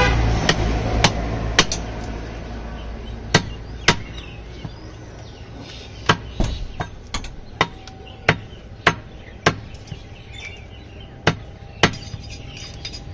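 Butcher's cleaver chopping beef on a wooden log chopping block: sharp, irregular chops, often in pairs about half a second apart, around fourteen in all. Traffic rumble fades over the first couple of seconds.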